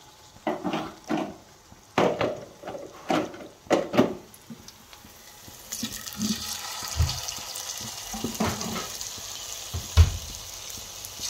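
A spoon stirring thick, wet pakora batter in a bowl, a quick run of squelching strokes. About six seconds in, spoonfuls of batter go into hot oil and a steady frying sizzle starts, with two dull knocks, the louder one near the end.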